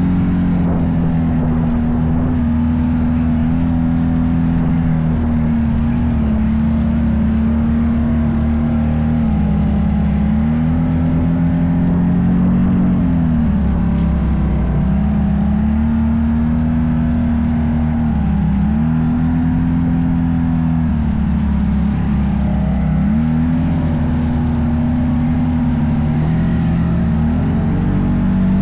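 Off-road vehicle engine running under load on a trail at a steady pitch. The pitch briefly dips and climbs back several times as the throttle is let off and opened again.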